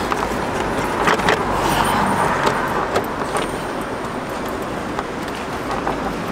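Road traffic passing by, a steady rumble and hiss, with a few light clicks about one to three seconds in.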